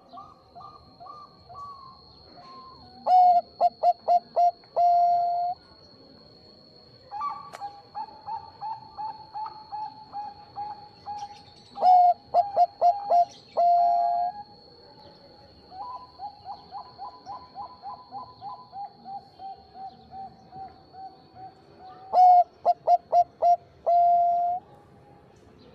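Perkutut Bangkok (zebra dove) cooing: three loud phrases about nine seconds apart, each a quick run of notes ending in a longer held note, with softer, fast runs of coos between them.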